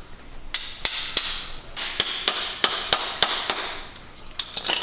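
Hand-tool work: about a dozen sharp taps or knocks at an uneven pace of two or three a second, with a hiss between them and a quick cluster of taps near the end.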